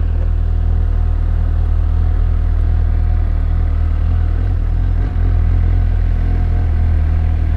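2017 Suzuki GSX-S750's inline four-cylinder engine running steadily under way on the road, with a brief dip in level about five seconds in.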